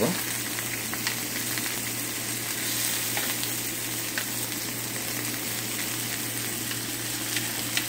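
Salmon steaks and apple slices sizzling steadily in a ridged grill pan, with a few light clicks of metal tongs against the pan as the apple slices are turned over.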